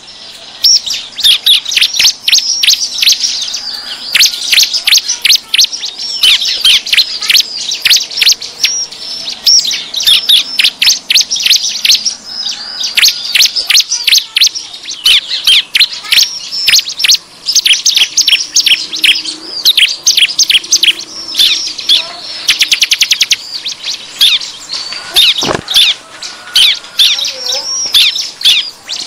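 Ciblek (bar-winged prinia) calling excitedly: a loud, busy run of sharp, high chirps, several a second, with a quick rattling trill about two-thirds of the way through. This is the noisy calling used as a lure to draw in wild ciblek.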